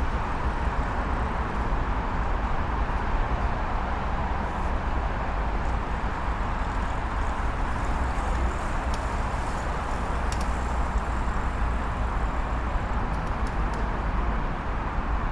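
Steady rumble of road traffic from the elevated roadway overhead, heavy in the low end. About eight seconds in a bicycle passes close by, with faint high ticking and clicks for a few seconds.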